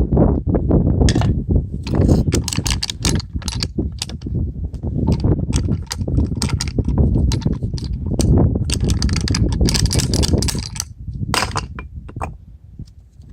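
Irregular metallic clicks, clinks and clanks of metal parts being handled or knocked together, over a low rumble, with several short gaps in the clicking.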